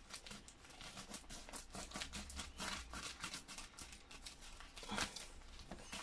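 Scissors snipping along the edge of a plastic bubble mailer: a quiet, quick run of small cuts and crinkles, with a louder rustle of the plastic about five seconds in.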